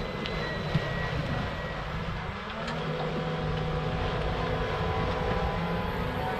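Mercedes eActros battery-electric truck rolling slowly past: a steady low hum and rumble, with no combustion engine. The hum strengthens about two and a half seconds in.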